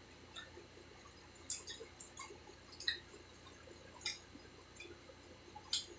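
People eating pizza and French fries: quiet chewing with sharp mouth clicks and smacks, about seven of them scattered through.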